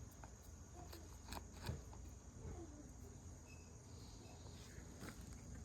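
Quiet work sounds: a few faint clicks and light taps of parts being handled, over a steady faint high-pitched whine.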